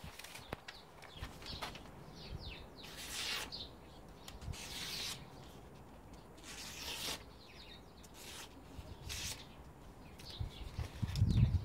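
A custom O1 tool steel knife slicing through a sheet of paper: about half a dozen short, hissing cuts a second or two apart, a test of the blade's sharpness. A low thump near the end, with faint bird chirps in the background.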